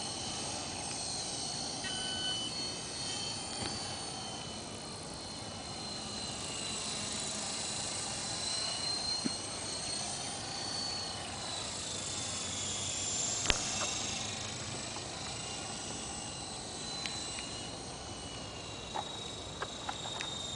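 Align T-Rex 450 electric RC helicopter in flight: a steady high-pitched whine from its motor and drivetrain, wavering a little in pitch, with a single sharp click near the middle. It is set up to fly fixed-pitch on a flat 8-degree pitch curve, so the rotor turns at a low head speed.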